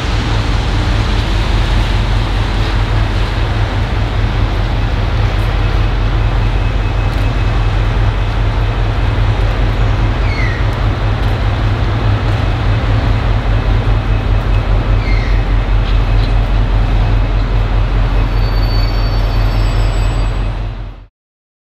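Diesel locomotive engine running close by, a loud steady low throb with a fast flutter, cutting off abruptly near the end.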